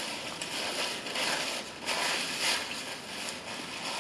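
Paper napkin rustling and crinkling as it is unfolded and then rubbed across the mouth, in several soft swells.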